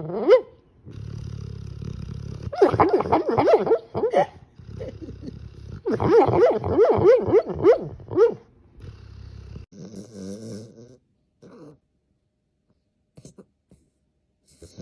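A dog vocalizing with grumbling, whining sounds that rise and fall in pitch. They come in two bouts, with a low rumble of breath between them, and fade to a few quieter sounds near the end.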